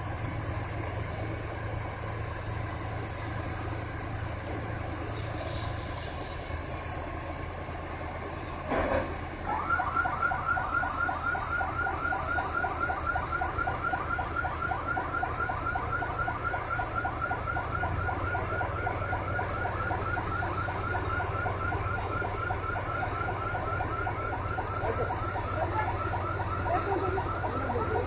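Heavy machinery runs with a steady low engine hum. About nine seconds in, a warbling warning alarm starts and repeats rapidly, about four chirps a second, over the engine.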